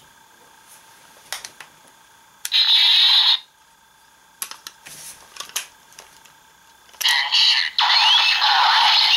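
Kamen Rider Kabuto henshin toy (Kabutick Zecter device) playing its electronic sound effects through a small, tinny speaker, with plastic clicks as the parts are handled and fitted. One loud sound lasts under a second about two and a half seconds in; a second starts about seven seconds in and carries on.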